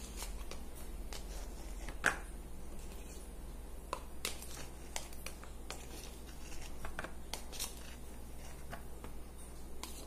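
Plastic tub and plastic bag being handled and worked with a hand tool: scattered light clicks and rustles, with one sharper click about two seconds in.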